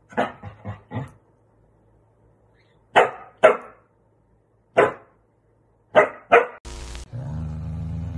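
Dog barking in short sharp barks: four in quick succession, then a pair, a single bark and another pair. Near the end a brief rush of noise, then a corgi's low steady growl.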